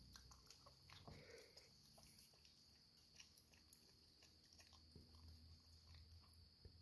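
Faint chewing and smacking of a raccoon eating a peanut butter sandwich, with scattered soft irregular clicks.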